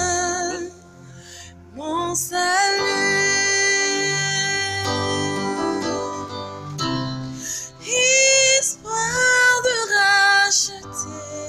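A woman singing a gospel song in long held notes with vibrato, over a soft backing track with a low bass. About eight seconds in she climbs to higher, louder held notes.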